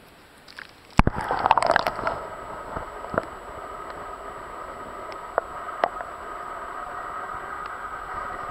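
A sudden knock and about a second of splashing and bubbling as the camera is plunged into the river, then a steady muffled underwater hiss with a few faint clicks.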